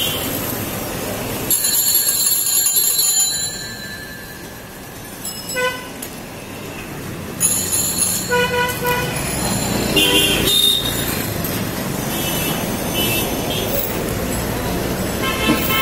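Road traffic passing, with short vehicle horn toots sounding several times from about halfway through.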